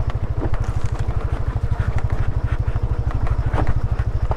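Motorcycle engine running at a steady low speed with a fast, even pulsing, with a few brief knocks as the bike rides over a rough dirt trail.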